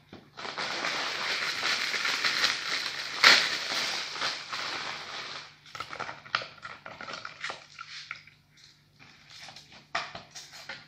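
Dry crackling and crunching of savoiardi ladyfingers being broken and pressed into a springform pan by hand. It is dense for the first five seconds, with one sharp snap about three seconds in, and then thins to scattered small clicks.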